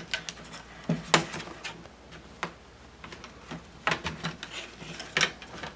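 Several sharp plastic clicks and snaps, spread out a second or so apart, as the Acer Aspire E14's screen panel is lifted free of its retaining clips.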